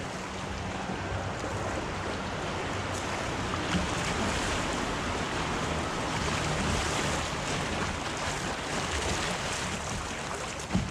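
River water rushing through a shallow riffle and splashing against a kayak's bow, loudest around the middle, with wind rumbling on the microphone. A brief knock comes near the end.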